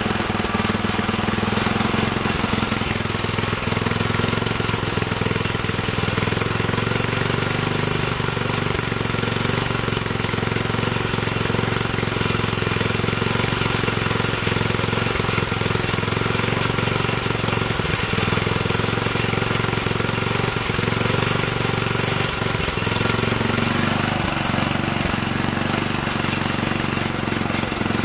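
Small single-cylinder Tecumseh horizontal-shaft gasoline engine running steadily at a constant speed after a carburetor rebuild, with a manifold bolt working loose.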